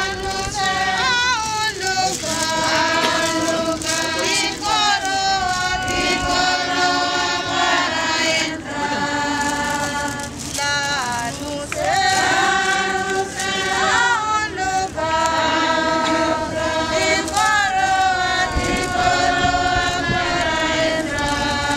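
A group of voices singing together in chorus, sustained notes with vibrato in phrases separated by short breaks.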